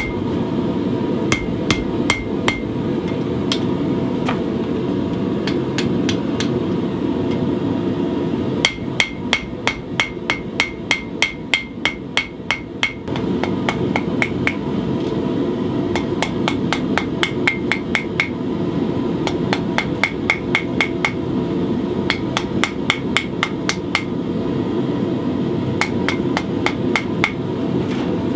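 Hammer blows ringing on an anvil, coming in runs of several strikes a second with short pauses, as a bar of 1/4 inch mild steel is forged to taper its ends for a knife guard. A steady rushing noise runs underneath.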